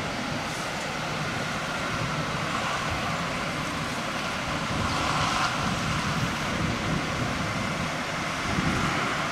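Large diesel coach engine running as the coach pulls slowly through an intersection and turns, over steady street traffic noise; the sound swells a little about five seconds in.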